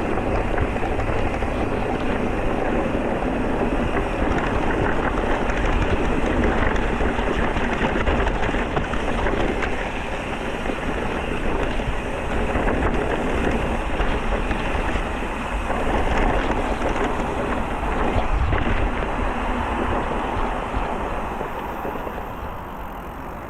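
Steady wind noise buffeting the microphone, with tyre rumble from a mountain bike being ridden, rising and easing a little over the ride.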